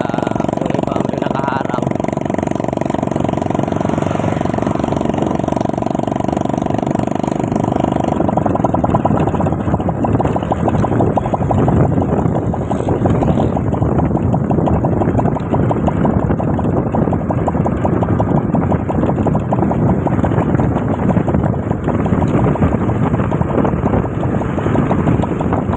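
Motorcycle engine running while riding along a road, with wind rushing over the microphone. About eight seconds in, the steady drone gives way to a louder, rougher rush.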